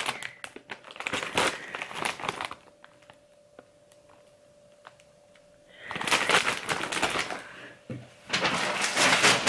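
Crinkling and crackling of a plastic snack bag of wafer biscuits being handled. It comes in two spells, with a quiet gap of about three seconds between them, and is densest near the end.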